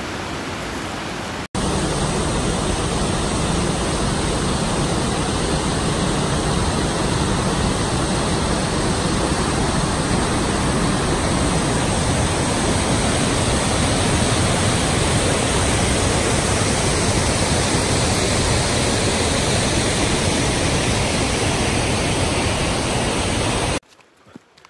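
Cummins Falls, a waterfall on the Blackburn Fork, pouring over its rock ledge, heard close up from the lip as a loud, steady rush of water. It starts suddenly about a second and a half in and cuts off about a second before the end.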